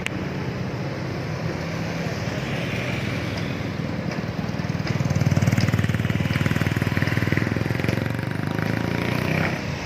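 Motorcycle engine running with a rapid pulsing beat, getting louder for a few seconds about halfway through.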